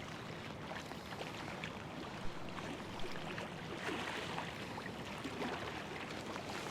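Steady rush of river current breaking against rocks at the bank, with a few light ticks on top.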